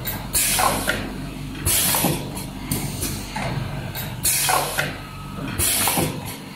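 Dual-head spin welding machine cycling: its pneumatic cylinders let out short, sharp bursts of air hiss about every second and a half, over a steady machine hum.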